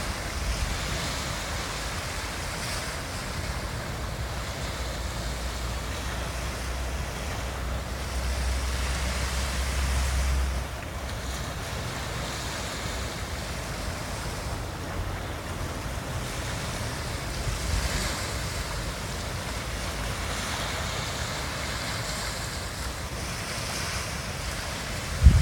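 Ocean waves breaking and washing up on a beach, swelling and easing. Wind rumbles on the microphone for about the first ten seconds, then drops away suddenly.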